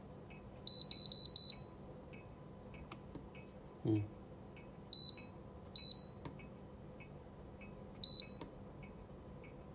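Electronic beeps from an electric kettle's base control panel as its buttons are pressed to set the water temperature: a quick run of four beeps about a second in, then single beeps spaced a second or more apart. A brief low thump near the middle.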